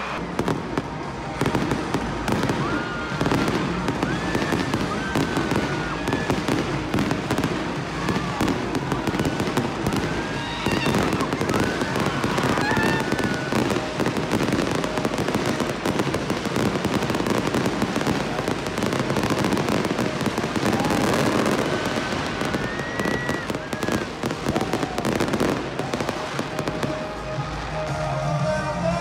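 Fireworks going off over a stadium in a long run of rapid cracks and pops, with high shouts from the crowd and concert music underneath.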